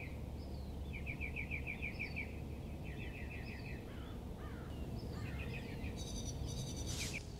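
Birds calling over a steady low background rumble: fast trilling phrases about a second long, repeated several times, and short falling whistles. A louder, harsher call comes near the end.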